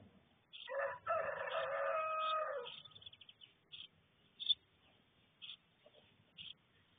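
A rooster crowing once, a single call of about two seconds, followed by short high chirps every half second to a second.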